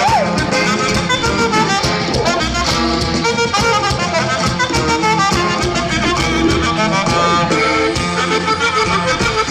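Norteño band music with saxophone carrying the melody over a steady dance beat.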